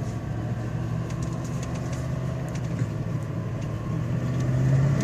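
Cadillac Northstar V8 running rough with a severe misfire, an uneven, chugging engine note, heard from inside the car. It gets a little louder near the end.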